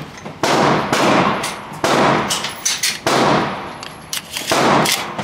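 Four gunshots, roughly every second and a half, each a sharp crack followed by a long echoing tail in an indoor shooting range.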